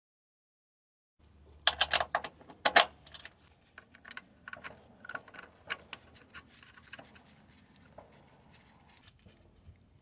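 Metal parts clicking, knocking and rattling as a pulley and its bolt are handled and fitted by hand on an engine. A burst of sharper knocks starts about a second in, then lighter scattered clicks follow.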